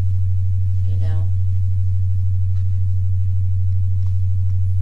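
A loud, steady low-pitched hum: one deep, unwavering tone with a fainter higher one above it. A faint voice says a few words about a second in.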